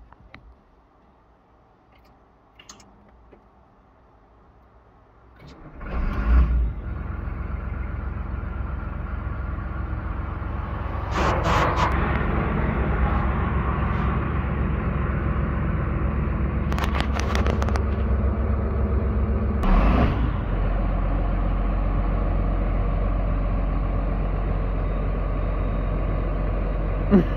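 John Deere excavator's diesel engine, quiet at first, then started about six seconds in and running steadily, a little louder from about eleven seconds in; this is the first start after a fresh oil change. Three short hisses come over the running engine.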